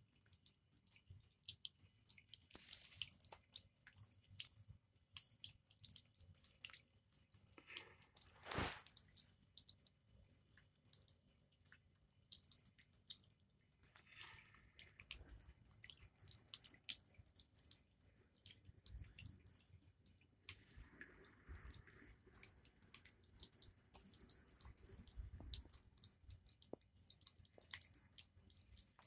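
Water dripping and trickling in many small, irregular drops.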